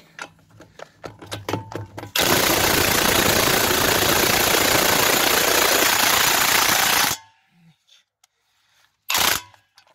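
Parkside PASSP 20 Li A1 cordless impact wrench hammering on a tractor wheel nut for about five seconds, cutting off abruptly, with a brief second burst near the end; a few light handling clicks come before it. It does not break the nut loose, which the owner takes as the wrench falling short of its rated torque.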